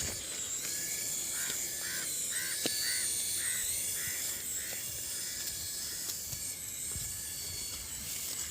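Toy RC helicopter's small electric rotor motor whining at a high pitch that dips and rises as the throttle changes. About a second in, a run of short repeated chirps comes in, about two a second, for a few seconds.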